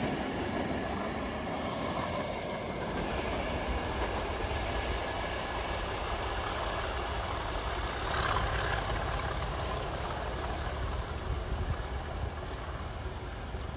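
Class 37 diesel locomotive's English Electric V12 engine running, working up as the locomotive gets the green signal and pulls away. A high whine rises in pitch about eight seconds in and then holds steady.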